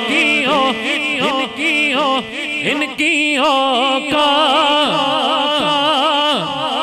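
A man singing a naat into a microphone: a long, ornamented melody with held notes that waver and bend in pitch.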